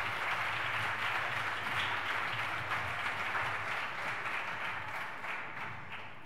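Audience applauding: many people clapping at once in a large hall, the applause tapering off near the end.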